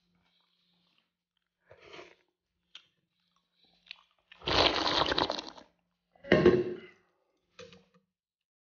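Close-up eating sounds: a person chewing and slurping a mouthful of porridge and its topping, in a few short bursts. The longest and loudest burst comes about halfway through.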